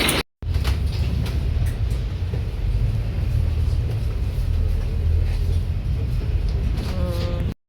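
Bus engine and road noise heard from inside while riding: a steady low rumble with occasional faint rattles and clicks.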